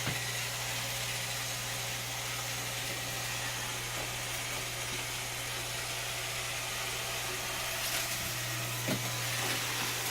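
Roomba 680 robot vacuum running steadily across a hard floor, a constant motor hum with brush and suction hiss. A light knock about nine seconds in.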